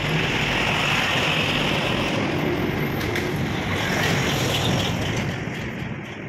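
Motor vehicle driving past close by, its engine and road noise loudest about four seconds in.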